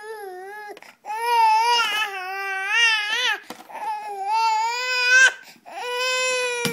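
Infant crying in frustration: four long, wavering cries that rise and fall in pitch, with short breaks for breath between them.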